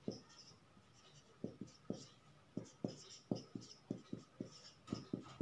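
Whiteboard marker writing on a whiteboard: a faint run of short, irregular strokes and taps as letters and a formula are drawn.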